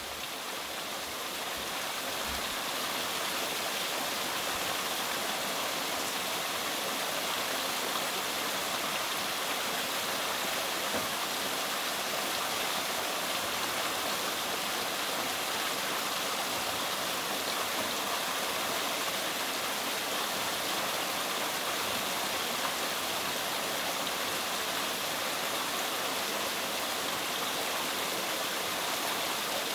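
Steady rushing of flowing water, an even hiss that swells in over the first two seconds and then holds level.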